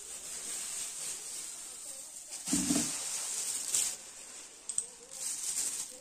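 Thin plastic grocery bags rustling and crinkling as they are handled and opened, with a short dull thump about two and a half seconds in.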